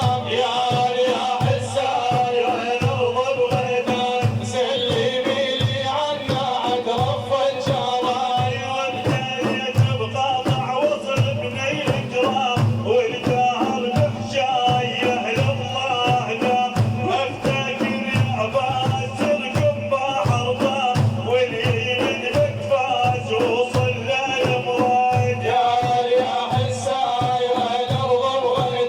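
Islamic praise singing (madih): voices chanting a held melody over a steady drum pulse of about two beats a second.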